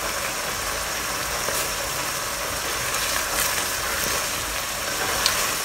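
Chicken and mushroom sauce bubbling in a non-stick wok over a gas flame, a steady hiss, while a wooden spatula stirs in cornstarch solution to thicken it, with a few faint scrapes.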